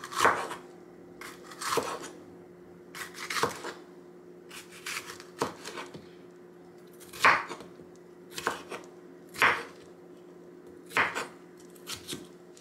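Chef's knife slicing a green bell pepper on a wooden cutting board: about a dozen separate knocks of the blade hitting the board, unevenly spaced. A faint steady hum runs underneath.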